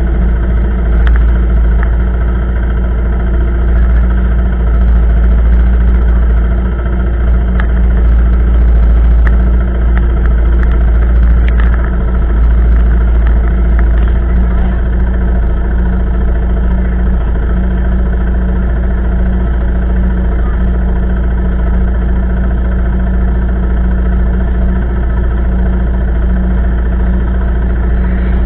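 ATV (quad bike) engine idling steadily and loudly, close by.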